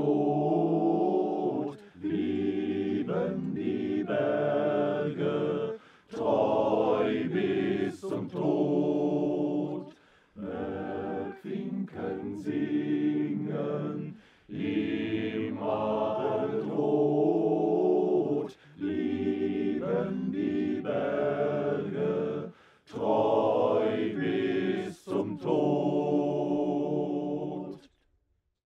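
Mountaineers' choir singing a cappella in German, the song's closing refrain sung in phrases of a few seconds with short breaks between them; the final chord ends about a second before the end.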